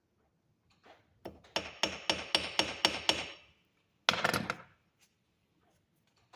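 Hammer tapping copper wire: a quick run of about eight blows, roughly four a second, then one last strike with a short ring about four seconds in.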